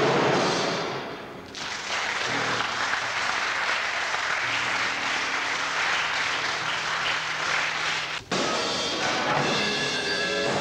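Percussion ensemble playing live: a dense, noisy wash of percussion with some sustained low tones, broken off suddenly about eight seconds in, after which mallet percussion rings out in clear pitched notes.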